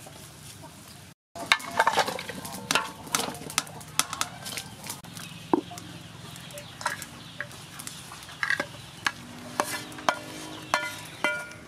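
Aluminium cooking pot knocking and clinking as it is set onto a clay charcoal stove, a run of sharp clanks and rattles after a short dropout about a second in. Chickens cluck in the background near the end.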